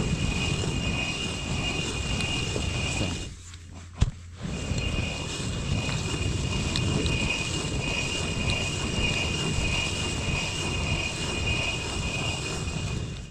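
Hand-turned rotary quern: the upper millstone grinding round on the lower stone as grain is milled into flour, a continuous stony rumble with a steady high-pitched whine on top. The turning stops briefly about three seconds in, with a sharp knock, then resumes.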